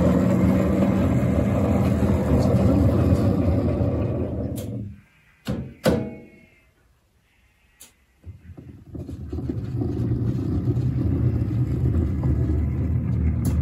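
Small battery-electric locomotive running on 7¼ inch gauge track: a steady low rumble of the motor and steel wheels on rail. It drops out about five seconds in, with a few sharp clicks during a short near-silent gap, and resumes about eight seconds in.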